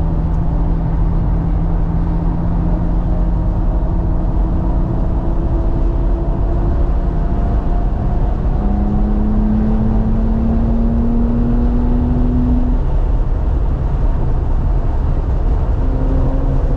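Inside the cabin of a 2018 BMW M3 Competition on a race track: its engine runs hard, its note climbing slowly in pitch, with a change to a new engine note about halfway through and again near the end, over a heavy rumble of road and wind noise.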